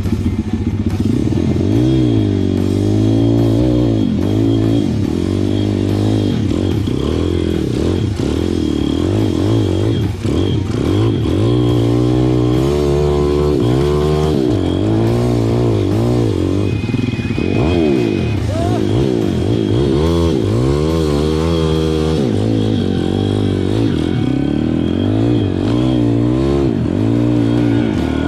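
Pit bike's single-cylinder four-stroke engine heard close up from on the bike, revving up and falling back over and over as the throttle is worked while riding a rough dirt trail.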